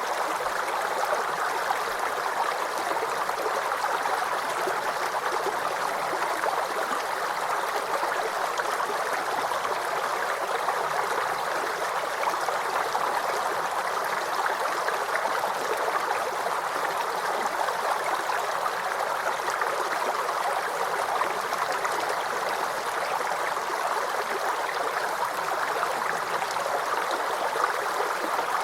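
Water stream flowing over rocks: a steady rushing and gurgling that does not change.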